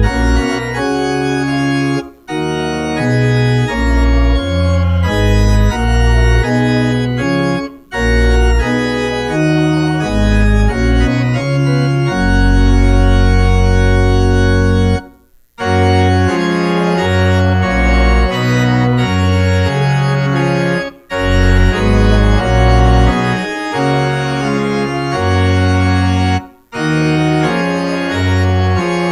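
Church organ playing a hymn in held chords, breaking off briefly between phrases about every five to six seconds, with one long low chord held before the longest break.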